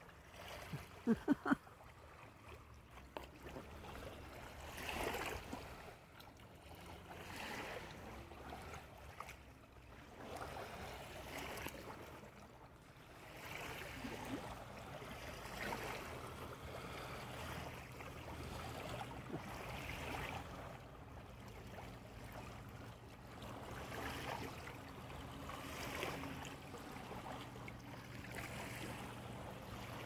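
Small waves lapping at the lake shore, gently swelling and fading every couple of seconds, over the faint low hum of a distant motorboat. A brief voice sounds about a second in.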